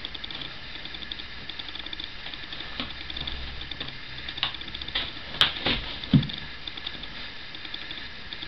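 A dog pawing and scratching at a cushion inside a cardboard box: a fast, continuous run of scratches, with a few louder knocks and bumps against the box a little past halfway.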